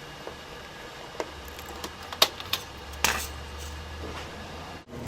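Scattered light clicks and taps from handling a laptop's parts and screws, over a faint low hum.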